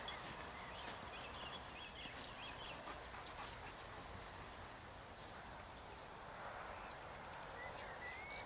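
Faint open-field ambience: short high chirps, in clusters early on and again near the end, over a low steady hiss, with a few soft clicks at the start.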